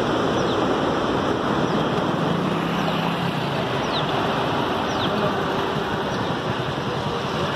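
Steady rushing noise of spray and water from the dam's released water falling like rain, with a low engine hum for about a second near the middle.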